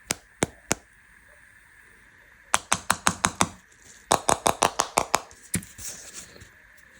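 Sharp clicks and taps from handling candy and its packaging. There are three spaced clicks in the first second, then two quick runs of about eight clicks a second, then a single click and a brief soft rustle.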